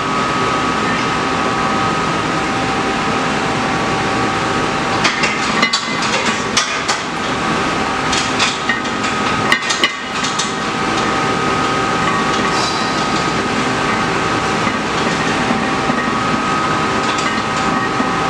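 Steady whirr of a gym fan with a constant hum, with scattered clicks and clanks from the loaded barbell and its plates as a lifter does back squats, in clusters from about five seconds in and again near the end.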